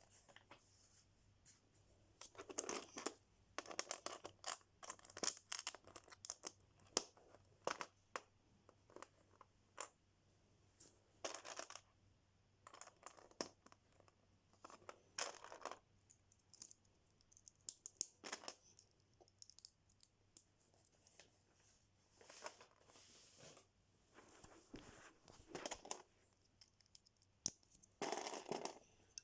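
Lego box and plastic bags being handled and opened by hand: bursts of rustling and tearing, scattered with many sharp clicks of plastic pieces.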